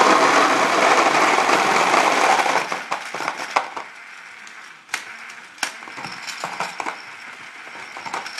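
Dye Rotor paintball loader's motorised rotor dumping its paintballs out through the feed neck. It makes a dense clatter of balls for about two and a half seconds, which then thins to scattered clicks and knocks of the last balls falling and bouncing.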